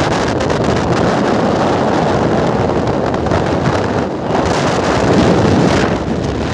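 Wind buffeting the microphone from a moving vehicle, over the vehicle's running and road noise; a steady, loud rush.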